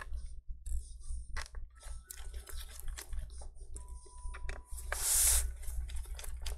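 Small clicks and taps of a Torx T5 screwdriver working the screws of a Dell XPS laptop's aluminium bottom cover, with a couple of faint short squeaks. About five seconds in there is a brief rustling swish.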